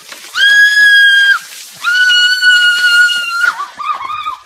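A girl screaming at the shock of ice water poured over her head. There are two long, high, steady shrieks, the first about a second long and the second about a second and a half. They are followed by shorter wavering cries.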